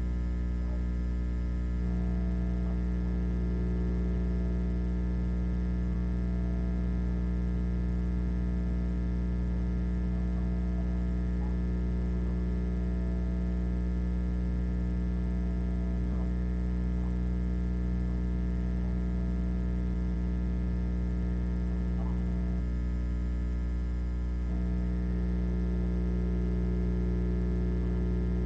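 Steady electrical mains hum: a low drone with a stack of overtones. Its tone shifts slightly about two seconds in and again near the end.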